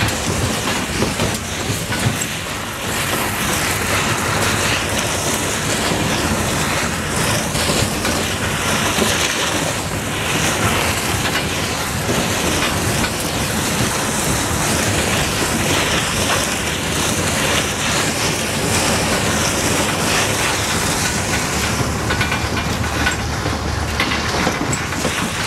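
Small boat hull dragged on a chain over wet gravel and through puddles: a steady scraping, crunching clatter mixed with the towing vehicle running.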